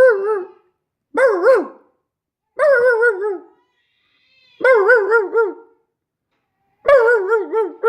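A dog barking in a run of drawn-out, wavering bark-howls, one about every one and a half to two seconds, each lasting about a second.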